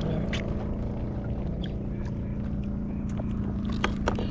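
Small engine running steadily at one speed, with a few light knocks near the end.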